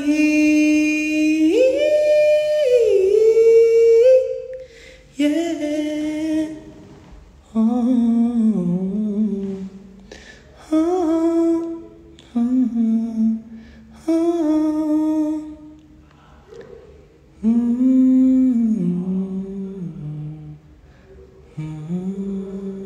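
A man's voice humming a slow melody unaccompanied, without words. It starts with one long phrase over the first four seconds or so, then goes on in short phrases with pauses between them.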